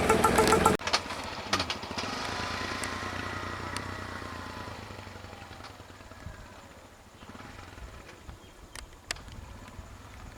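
A vehicle engine runs loudly and cuts off abruptly under a second in. A fainter engine whine then slowly falls in pitch and fades away, with a few sharp clicks near the end.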